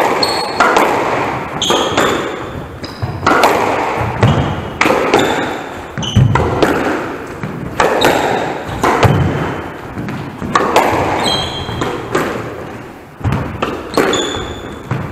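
Squash rally: the ball cracking off the rackets and smacking the walls and wooden floor again and again, roughly once a second, each hit echoing briefly around the enclosed court, with short high squeaks from shoes on the floor in between.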